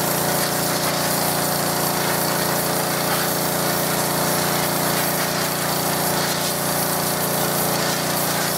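Petrol pressure washer running steadily, its engine note under the continuous hiss of the high-pressure jet blasting flaking paint off metal garden furniture.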